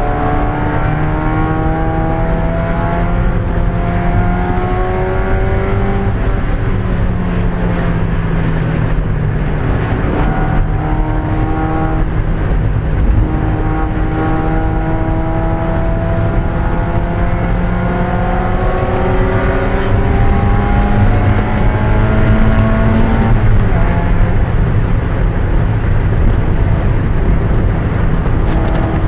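1995 Mazda Miata's 1.8-litre four-cylinder engine pulling hard on a race track, its pitch climbing slowly through each gear and dropping at the shifts, about six seconds in, around ten seconds, and again a little past twenty-three seconds.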